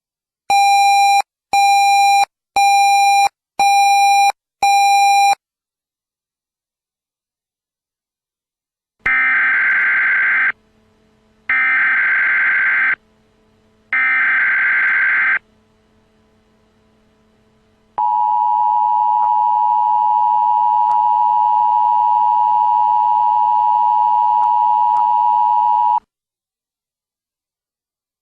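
Five short electronic beeps, then the Emergency Alert System's three screeching data bursts (the SAME header), then the EAS two-tone attention signal held steady for about eight seconds.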